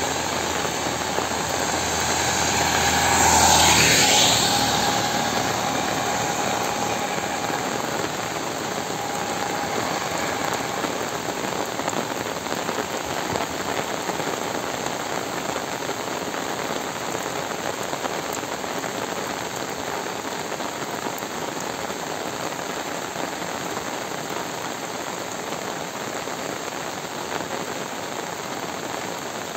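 Heavy rain falling steadily. About three to four seconds in, a motor vehicle passes close by, swelling up and then fading away over the next several seconds.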